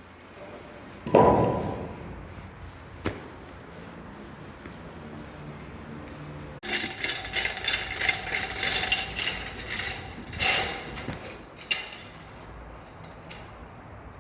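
A sharp knock with a short ring about a second in, then from about halfway a saw cutting, a rough scraping sound that swells and fades in uneven strokes for several seconds.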